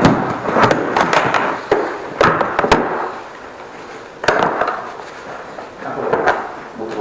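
Knocks and clatter of a drain inspection camera's cable reel and gear being handled beside an aluminium equipment case, with shuffling steps on a tiled floor near the start.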